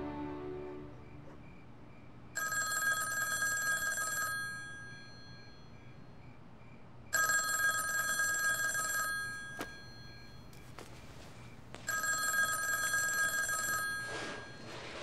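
Telephone bell ringing three times, each ring about two seconds long with a pause of a couple of seconds between: an incoming call.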